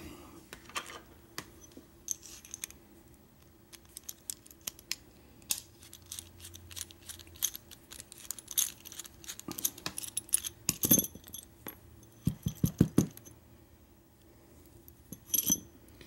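Scattered small metallic clicks, taps and rattles from a brass Schlage deadbolt cylinder being taken apart, with a follower rod pushed through the plug. The clicks come in clusters, thickest a little past the middle.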